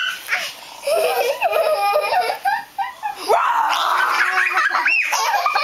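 People laughing and giggling. About halfway through comes a breathy stretch of about a second, a person imitating a big cat's snore.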